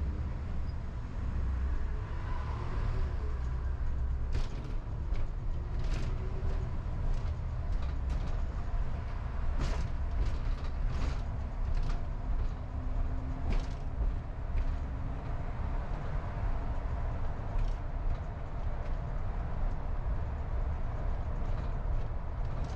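Car driving along a city street: a steady low rumble of road and engine noise, with sharp clicks and creaks scattered through it.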